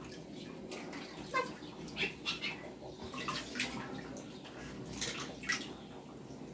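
Water sloshing and splashing in a steel bucket as hands rub and rinse wild mushrooms, in irregular short splashes.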